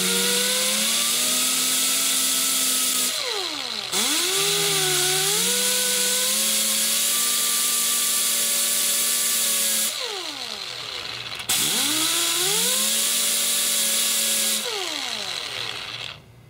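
Small right-angle grinder with a sanding disc grinding down the steel locking tab of an M14 magazine. It makes a high whine with a hiss, and the pitch wavers as the disc bites into the metal. The motor is let off and winds down in falling pitch three times, starting up again quickly after the first two.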